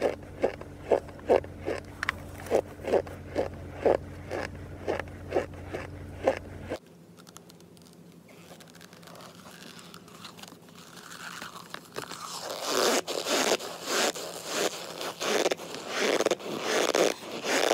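Close-miked biting and chewing of hard, chalky chunks, with sharp crunches about twice a second over a low hum. The sound cuts off about seven seconds in, and dense, louder crunching starts again near the middle.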